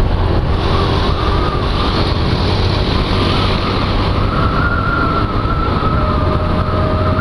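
Harley-Davidson motorcycle on the move, its newly modified exhaust running steadily under wind noise on the microphone. A steady, slightly wavering high tone sits over it and grows clearer about halfway through.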